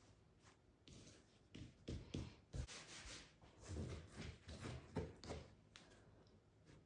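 Hands folding and pressing a soft wheat bread dough on a floured silicone baking mat: faint soft pats, slaps and rustles, busiest from about one and a half to five and a half seconds in.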